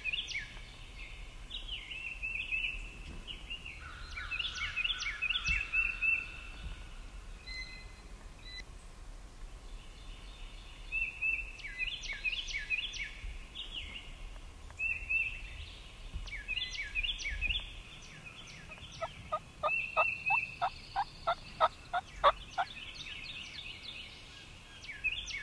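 Wild turkey yelping: a run of about a dozen evenly spaced yelps near the end, getting louder as it goes. Songbirds chirp repeatedly through the whole stretch.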